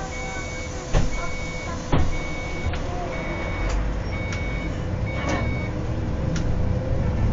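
Short, identical electronic beeps repeating about once a second from a bus cab, over the bus engine's low running and road noise, with light ticks and two loud knocks about one and two seconds in.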